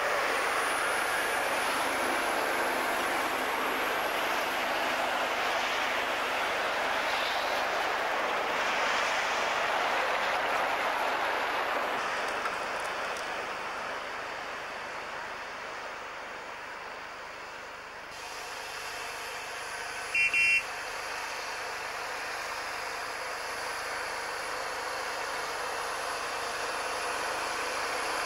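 Heavy rubber-tracked tractor hauling a train of sledges over snow, its engine and tracks running steadily. The sound eases past the middle and builds again. A brief loud burst comes about twenty seconds in.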